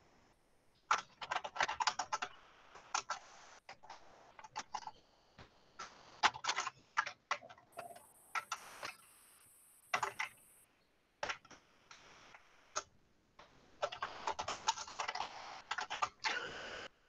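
Typing on a computer keyboard: short runs of keystrokes with brief pauses between words, and a quicker, denser run near the end.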